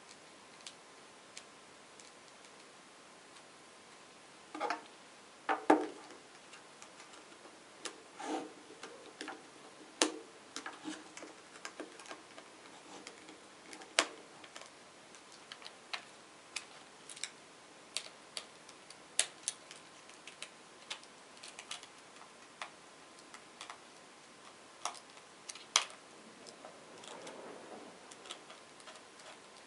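Irregular sharp clicks and light knocks of small robot-car kit parts being handled and fitted: metal screws and nuts, a screwdriver, and the plastic wheels and gear motors against the chassis plate. There are a few louder knocks among them.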